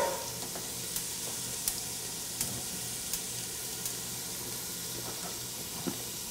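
Chopped onion sizzling gently in olive oil in a pot as it sautés, a steady hiss with a few faint ticks.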